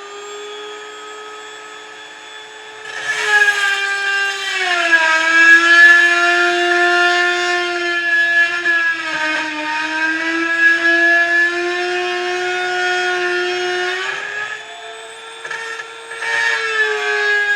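Dremel rotary tool running at a high steady whine. About three seconds in it starts grinding against metal, and its pitch drops under the load. The load eases and the pitch climbs back a little before the end, then it bites in again.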